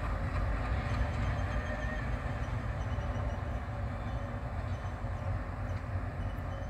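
Diesel locomotive engine running with a steady low rumble as the locomotive moves along the track.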